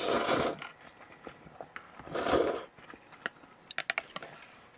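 Two loud slurps of noodle soup, about two seconds apart, followed by a quick run of light clicks near the end.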